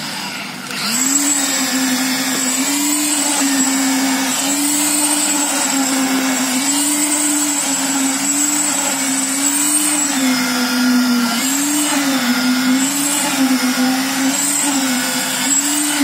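Handheld electric concrete needle vibrator running continuously, its poker worked through fresh concrete. It makes a steady motor whine whose pitch keeps wavering up and down, with a brief dip and recovery in the first second.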